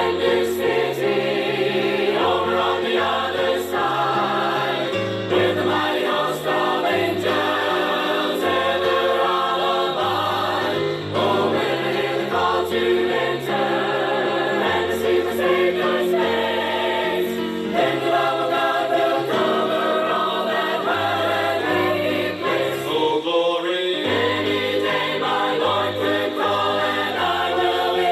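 Choir singing a gospel song, with a bass line stepping from note to note underneath.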